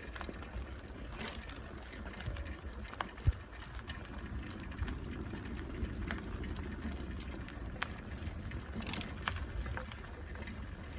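Bicycle rolling along a jungle dirt path: a steady low rumble of tyres and wind, with scattered clicks and rattles from the bike, one sharp knock about three seconds in and a brief hiss near the end.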